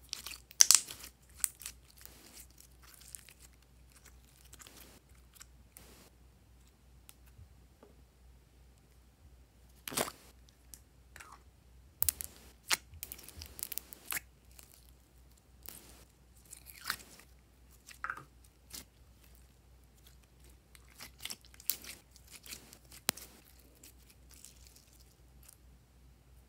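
Glossy glitter slime being squeezed, stretched and pressed by hand: scattered sticky clicks and crackles with quiet gaps between them.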